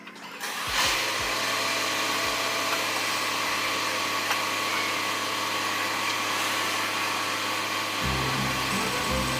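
Steady mechanical whooshing noise with a constant low hum, like a blower or running machinery; a bass line of music comes in about a second before the end.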